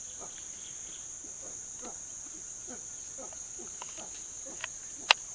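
Steady high-pitched drone of forest insects, with faint scattered rustles and crackles. A sharp click about five seconds in is the loudest sound, with a smaller one just before it.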